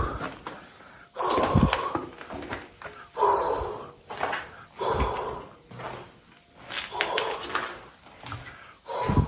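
Steady night chorus of crickets and other insects, with footsteps crunching on debris about once a second.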